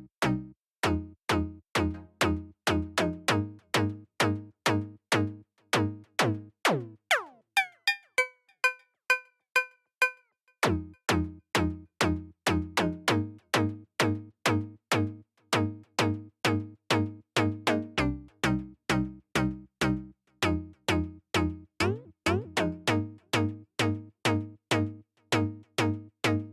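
Synthesizer pluck patch in NI Massive playing a fast repeating pattern of short notes, about two to three a second, each with a sharp click at the start and a quick decay, dry without reverb or delay. A falling pitch sweep comes about seven seconds in and again near the end, and for a couple of seconds after the first sweep only thin high notes sound.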